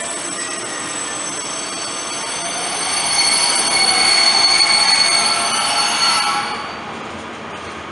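Regional passenger train rolling past a station platform: a steady rushing running noise with several high, steady tones over it. It grows louder about three seconds in, then drops away about six and a half seconds in.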